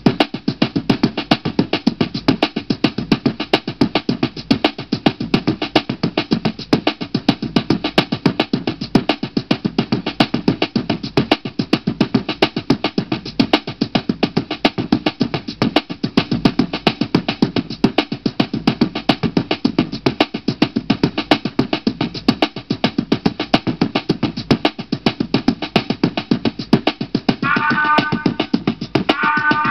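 Music with a steady drum beat playing from a CD through a Studebaker SB2150 Retro Edge Big Sound boombox; a held melody line comes in twice near the end.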